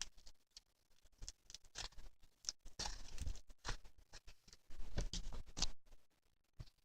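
Irregular light taps, clicks and short scraping sounds, busiest through the middle few seconds and fading near the end.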